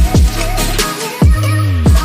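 Background music: an electronic instrumental track with a steady kick-drum beat and bass line, which drops out briefly about a second in.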